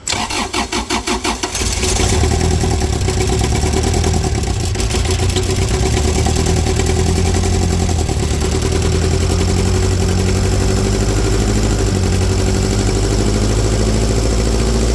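Cummins Onan diesel generator cranking on its starter with fast, even pulses for about two seconds. It then catches and runs steadily. This is its first start after air was bled from its fuel system.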